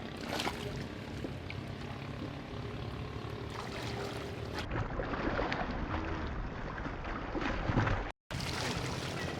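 Strong wind buffeting the camera microphone over a steady low hum, with a short dropout to silence near the end.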